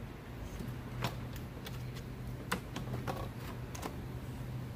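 Scattered light clicks and taps, about half a dozen, from hands and tools working on a car's plastic radiator fan assembly as it is freed from its mounts, over a low steady hum.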